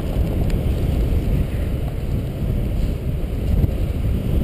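Wind rushing over the microphone of a camera on a paraglider in flight, heading into a headwind: a steady low rumble.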